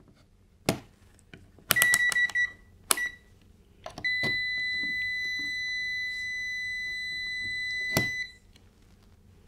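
Kaiweets KM602 multimeter's continuity beeper sounding a steady high beep for about four seconds while its test leads are closed through a second meter. Before it come a few clicks and two short beeps as the meters are handled, and a click marks the end.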